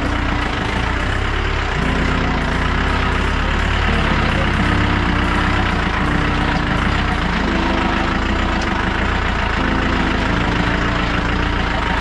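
Off-road jeep's engine running steadily as it crawls over a rough, rocky track, its pitch shifting every second or two.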